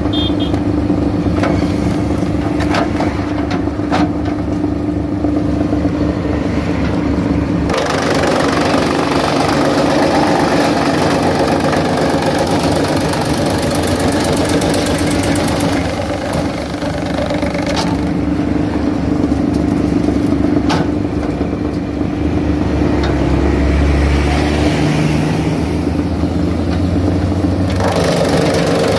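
Tractor-powered wood chipper running, with the engine driving it steadily throughout. About eight seconds in, the blades take a fed log and the noise grows much louder and rougher for several seconds as the wood is shredded. It happens again twice later on, with the engine note shifting under the load in between.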